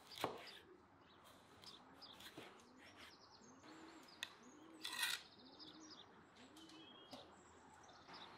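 A dove cooing faintly, a run of about six soft low coos a little under a second apart, with small birds chirping high above. A couple of light knocks sound, one near the start and a short clatter about five seconds in.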